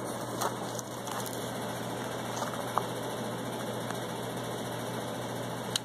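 Steady low hum with a few faint ticks, then one sharp crack near the end: a single shot from a Jennings J-22 .22 LR pocket pistol.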